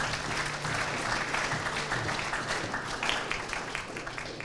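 Audience applauding, dense rapid clapping that dies away near the end, over a steady low electrical hum.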